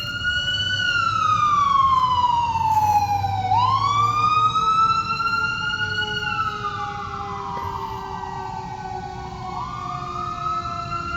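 Emergency siren wailing, its pitch sweeping slowly up and down with a rise and fall every five to six seconds, over a low rumble of traffic.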